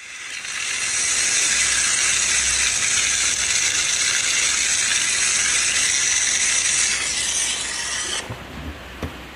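Steady hissing rush of a water jet from a cordless-ratchet-driven pump, cutting off abruptly about eight seconds in. A few light knocks follow near the end.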